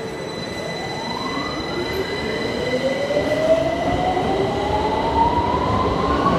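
London Underground tube train accelerating out of the platform, its traction motor whine rising steadily in pitch over the rumble of wheels on rail. The sound grows louder as it speeds up.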